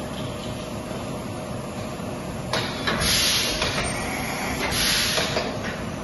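Compressed air hissing loudly from a CNC vertical machining center, starting about halfway through, breaking off briefly and coming back, then stopping just before the end. Underneath is a steady low hum.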